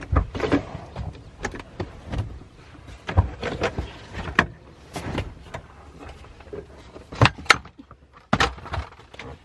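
Car rear seats being folded down: seat latches clicking and seatbacks knocking, an irregular run of sharp clicks and thumps with two loud clicks close together about seven seconds in.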